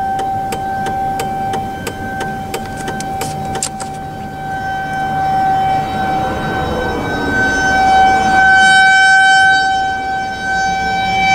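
Nuclear plant's outdoor warning siren sounding its steady test tone, heard from inside a pickup's closed cab. The tone is not steady, swelling and fading and growing louder over the second half. A rapid regular ticking runs through the first few seconds.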